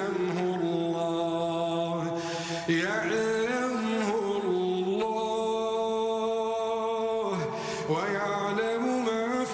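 A man's voice reciting the Quran in melodic tajweed style, drawing out long held, ornamented notes. A brief pause for breath comes about a third of the way in and another near the end.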